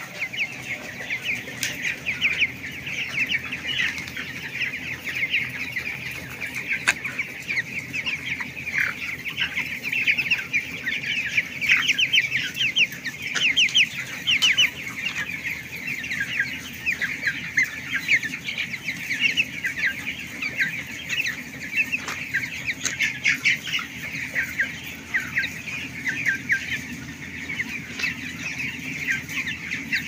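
A large flock of three-week-old broiler chickens peeping and chirping continuously, many short high calls overlapping, over a steady low hum.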